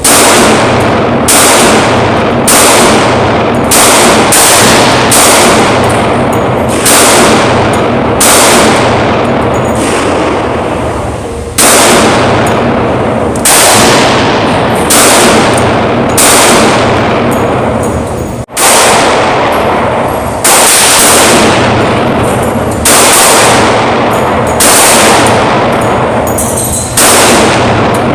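Glock 20 10mm pistol firing a long string of shots, about one a second and about twenty in all. Each shot is sharp and loud and fades out slowly.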